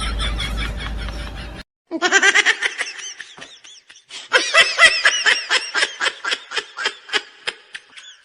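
Laughter sound effects played one after another: three separate laugh clips, each a quick run of repeated "ha" syllables. The last and longest fades out near the end.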